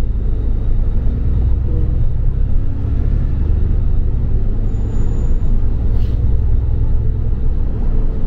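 Double-decker bus running, heard from inside the bus: a steady low rumble of engine and road noise.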